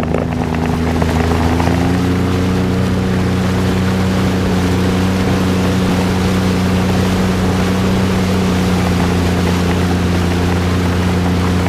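Jet ski engine speeding up, its pitch climbing over the first couple of seconds, then holding steady at speed over a constant rushing hiss.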